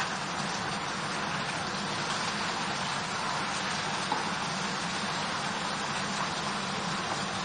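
Green chillies and beans frying in hot mustard oil in a frying pan: a steady, even sizzle, with a small crackle about four seconds in.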